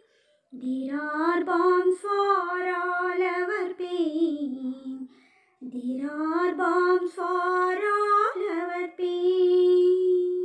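A solo voice singing an English poem to a slow, simple tune, unaccompanied, in two long phrases with a short breath between them. The last note is held steady near the end.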